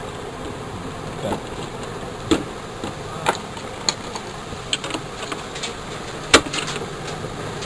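Scattered clicks and knocks of a small sealed lead-acid battery and its wiring being handled in a digital scale's plastic battery compartment, over a steady background hum; the sharpest knock comes about six seconds in.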